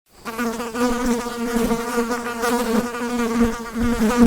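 A fly buzzing in flight: a steady, slightly wavering buzz that fades in just after the start.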